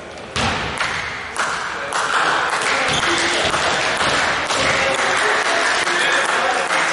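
Spectators and bench players clapping and shouting during a basketball game, starting sharply about half a second in and going on steadily, with voices mixed into the clapping.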